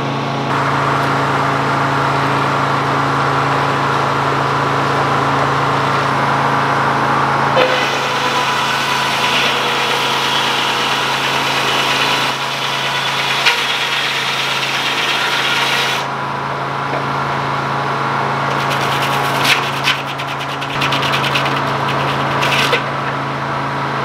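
Detroit Diesel engine running a Frick circular sawmill while the blade rips through a log. The steady engine hum shifts about eight seconds in as a high hiss of cutting joins it for several seconds, and a run of rapid ticks comes near the end.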